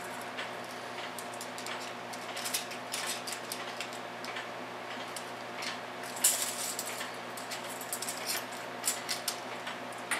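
Steel clock mainspring being worked off its arbor by hand: irregular small metallic clicks and scrapes, the sharpest about six seconds in, over a steady faint hum.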